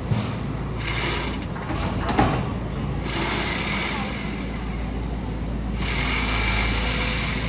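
Excavator engine running steadily under load, with short metallic knocks, the sharpest about two seconds in.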